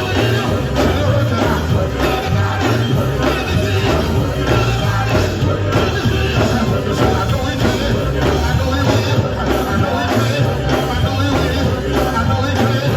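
Live gospel band playing loud and steady, with a heavy bass line and a regular drum beat.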